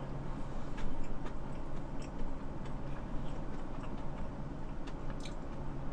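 Faint, irregular small clicks of chewing sushi with the mouth closed, over a low steady hum.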